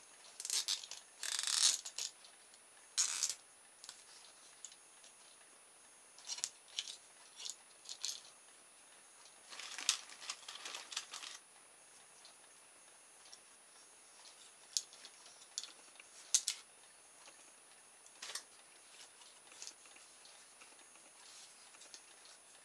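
Plastic cable ties being threaded and pulled tight by hand: short zipping ratchet bursts, the longest about a second in and again around ten seconds in, among scattered small clicks and handling rustles.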